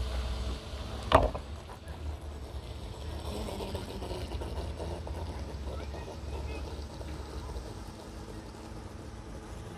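Wind rumbling on the microphone, with one sharp knock about a second in and faint distant voices in the middle.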